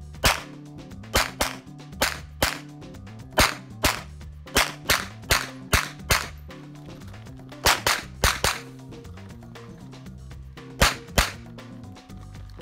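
Canik TP9 SFx 9mm pistol firing rapid shots, mostly in pairs about a third of a second apart, with pauses of one to two seconds between groups.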